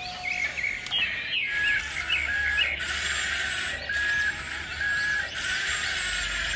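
Background music: a light, chirpy phrase of short high notes repeating about once a second.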